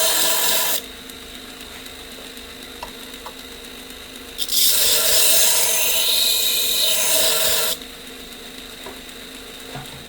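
Belt sharpener running a 180-grit abrasive belt. A Benchmade pocket knife blade is ground on it in two passes: a loud grinding hiss that stops just under a second in, and another lasting about three seconds in the middle. Between the passes the machine runs with a steady hum.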